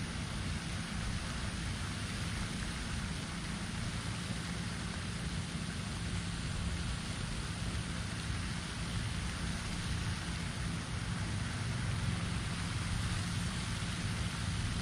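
Steady outdoor wind noise: a constant low rumble of wind on the microphone with a soft hiss over it.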